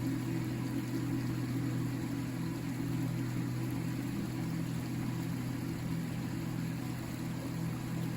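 River flowing: a steady, low rushing rumble with no breaks.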